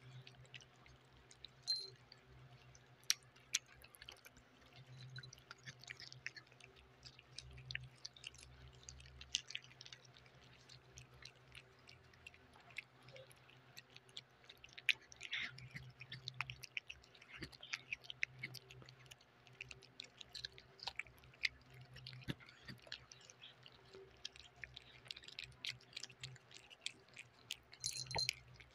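Three cats chewing and smacking on soft chunks of chicken adobo and liver: a dense, irregular run of small wet clicks with no break.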